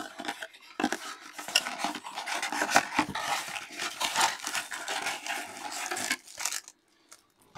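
Cardboard box and foil-wrapped trading-card packs handled close to the microphone: rustling and scraping with many light clicks, which stop about a second before the end.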